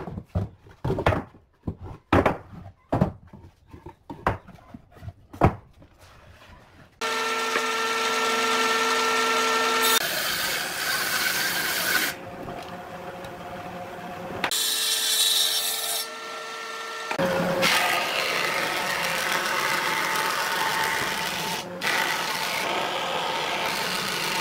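Wooden boards knocking and clattering against each other and a table as they are handled, a series of separate sharp knocks. Then, about seven seconds in, an electric planer-thicknesser starts running with a steady whine, and a rough rasping noise joins in as its cutter head shaves boards fed through it, changing abruptly several times.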